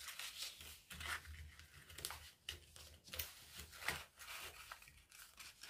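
Folded colour paper crinkling and rustling under the fingers as the origami model is pinched and pressed into shape, in short, irregular crackles.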